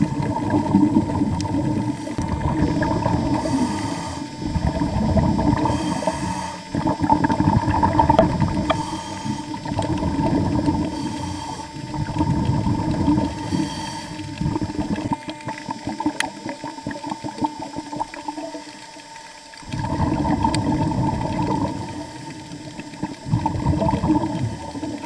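Water heard underwater around the reef, swelling and fading every few seconds as the surge moves past, with a steady hum underneath and a quieter lull about two-thirds of the way through.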